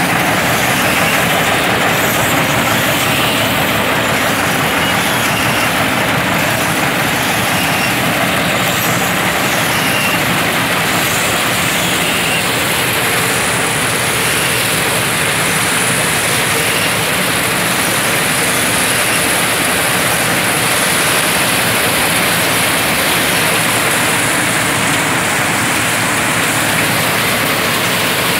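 Tractor-mounted mini combine harvester running steadily: the tractor engine and the harvester's machinery making one dense, even mechanical din that does not change.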